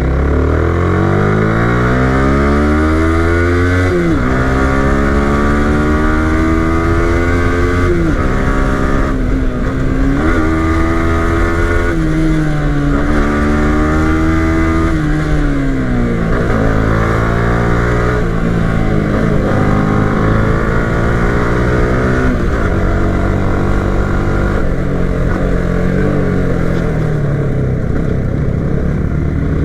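Yamaha R15 v3 motorcycle's single-cylinder engine accelerating hard: the pitch climbs, drops sharply and climbs again several times, like upshifts through the gears. About halfway through it slows, the pitch falling away in steps.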